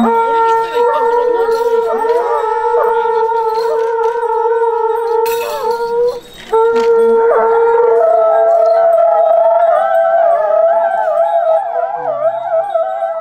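Horagai conch-shell trumpets blown by yamabushi monks: long held tones with a short break for breath about six seconds in. From about eight seconds in, a higher-pitched conch takes the lead, and several wavering tones overlap.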